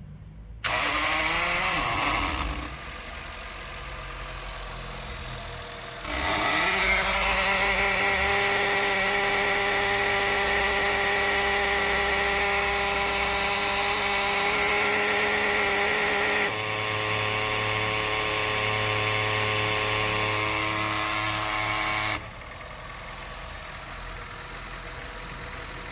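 Honda Fit's electronic throttle body making a loud mechanical whine and grind with the engine started and running. The noise comes in two long loud spells, the second changing pitch partway through, over a quieter steady engine note. It is the sign of a failing throttle actuator gear, with fault codes P2101 and P2110 for the throttle actuator control system.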